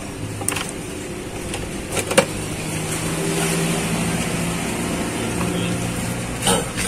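A few sharp metal clinks and knocks as a disc-brake caliper and its parts are handled with tools. Under them runs a steady low hum of a vehicle engine, growing a little louder midway.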